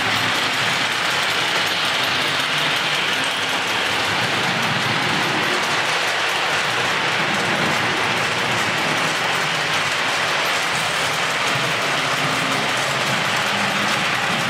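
Model train cars rolling past on metal track, giving a steady mechanical rattle and whir of wheels and running gear.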